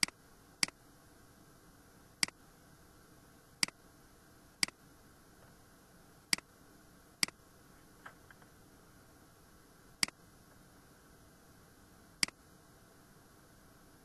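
Computer mouse button clicking: about nine single sharp clicks at irregular intervals, with a couple of fainter ticks about eight seconds in, over a faint steady hiss.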